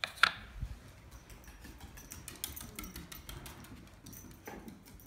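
A small dog's claws ticking on a wooden floor as it moves about searching, with a sharp knock about a quarter second in.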